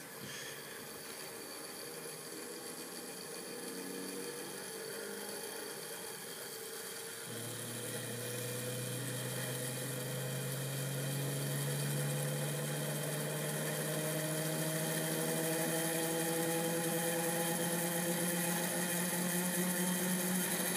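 Small gyroscope's brass rotor spinning in its gimbal, a steady whirring hum that slowly rises in pitch and grows louder as the rotor speeds up; a lower hum joins about seven seconds in.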